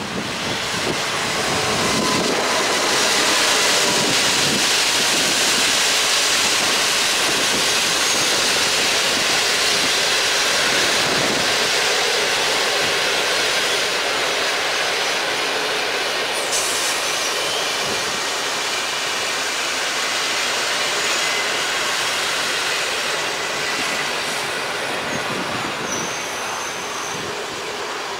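EU07A electric locomotive passing with a train of passenger coaches: a steady rolling rush of wheels on rail, with clicks over the rail joints and a faint high squeal now and then. It is loudest a few seconds in and eases off slightly toward the end.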